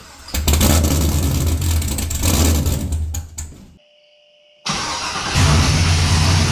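LQ4 6.0-litre V8 on its first start-up, cold, catching and running loudly for about three and a half seconds. The sound breaks off abruptly for about a second, then the engine runs again and gets louder as throttle is given.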